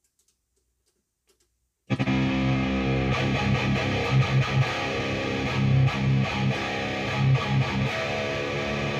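A 1987 ESP M1 Custom electric guitar played through a Peavey 6534+ tube amp head on a high-gain setting. Heavy distorted riffing with low sustained notes and accented chugs starts abruptly about two seconds in. The guitar is out of tune.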